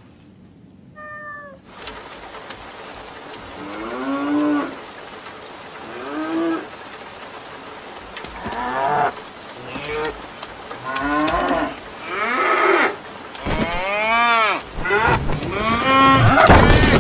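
Cartoon cows mooing over and over, short calls that rise and fall in pitch every second or two, coming faster and overlapping near the end, over a steady hiss of rain. A short high squeak from a cartoon mouse comes about a second in.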